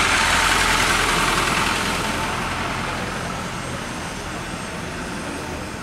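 Light police truck's engine running as it drives slowly past close by, loud at first and fading steadily as it pulls away.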